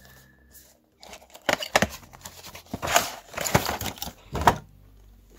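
Cardboard fan box and clear plastic packaging tray being handled and opened: a run of crinkling and crackling with sharp clicks and knocks, starting about a second and a half in and stopping near the end.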